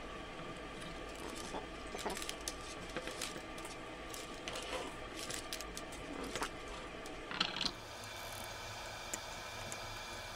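Clicks, taps and rustles of a plastic-coated EL wire and a wooden cutout being handled on a tabletop, over a steady hum. The handling stops abruptly near the end, leaving the hum and a few faint ticks.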